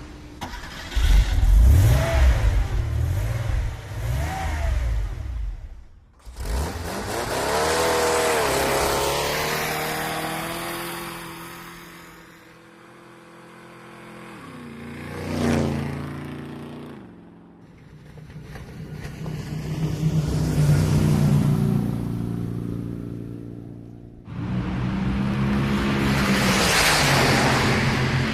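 Car engines revving and driving past one after another. Each swells and fades, and the engine note drops in pitch as it goes by.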